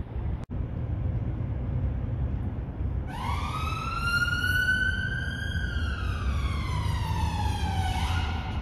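An emergency vehicle's wailing siren over a steady low rumble: about three seconds in its pitch rises, holds, then falls slowly, and near the end it starts to rise again.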